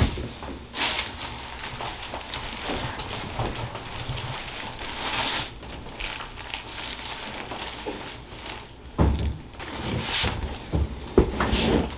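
Rustling and handling noises of a patient being positioned on a chiropractic table, with a loud low thump about nine seconds in and a sharp click about two seconds later.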